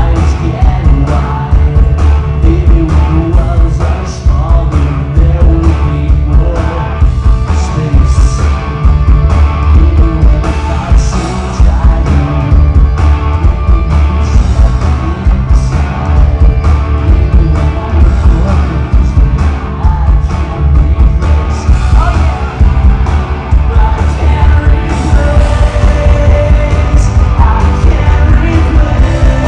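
Piano-driven pop-punk band playing live through a concert PA, with grand piano, electric guitars, drums and sung vocals, heard loud from within the audience.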